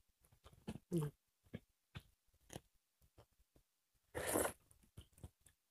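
Eating sounds of people eating rice and curry with their hands: scattered soft mouth clicks and lip smacks of chewing, a brief voiced sound about a second in, and a short breathy hiss about four seconds in.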